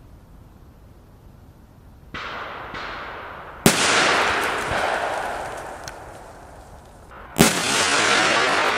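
A lit fuse hissing, then two sharp firecracker blasts from a Korsar-10 firecracker, spaced about four seconds apart. Each blast is followed by a few seconds of rushing noise that slowly dies away.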